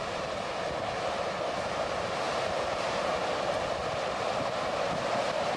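Steady rushing noise of a muddy flash flood surging down a valley, carrying debris.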